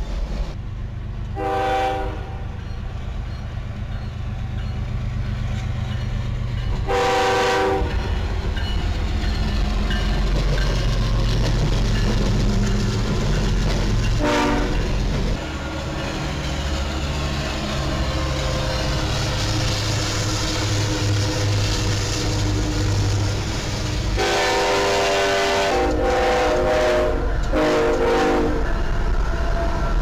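Locomotive horn sounding in several blasts, the last three close together near the end, over the steady rumble of a train.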